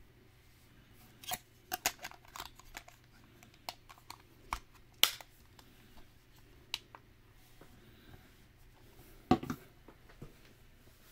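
Irregular sharp clicks and light taps of small hard objects being handled, a cluster of them about two seconds in, with a duller knock just after nine seconds.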